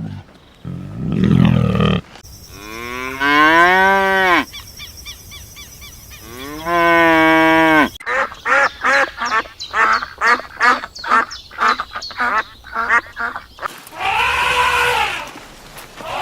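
Cows mooing: several long, drawn-out calls, with a quick run of short, repeated calls in the middle.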